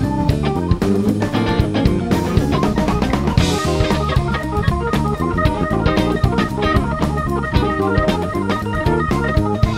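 A live instrumental band of Hammond-style organ, guitar, bass and drum kit playing together, with a steady stream of drum hits and a cymbal crash about three and a half seconds in.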